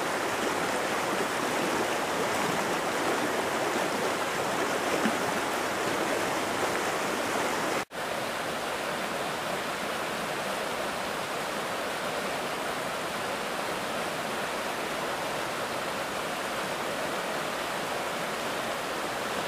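Fast whitewater mountain creek rushing over rocks in a steady wash of water noise. It breaks off for an instant about eight seconds in, then goes on a little quieter.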